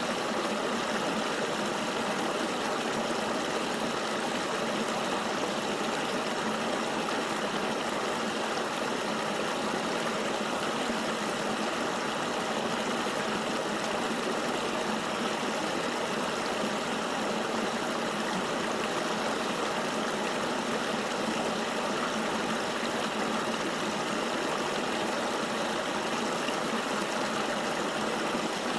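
Flowing river water rushing steadily, an even wash of noise with little bass and no distinct splashes or changes.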